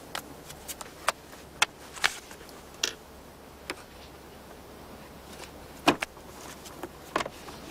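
Irregular small knocks and clicks of desk items being handled and put into a cardboard box, with the loudest knock about six seconds in.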